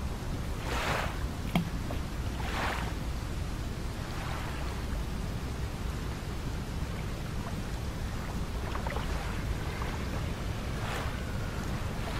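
Stormy wind-and-water ambience: a steady low rumble with short washes of water swelling and fading every few seconds, and one sharp knock about one and a half seconds in.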